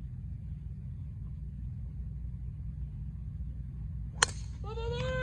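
A golf driver striking the ball off the tee: one sharp crack about four seconds in, over a steady low rumble. Spectators' voices rise in cheers and calls right after the strike.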